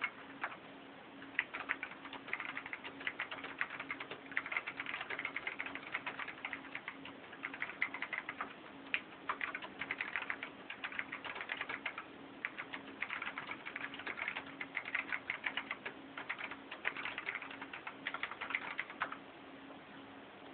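Typing on a Dell AT101W mechanical keyboard with Alps key switches: fast runs of clacking keystrokes in bursts with short pauses, stopping near the end.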